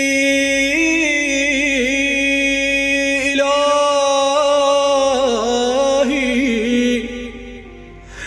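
A man's voice chanting an Arabic supplication in a long, drawn-out melismatic line: a held note with wavering ornaments that rises to a higher pitch about three seconds in, then fades away about seven seconds in.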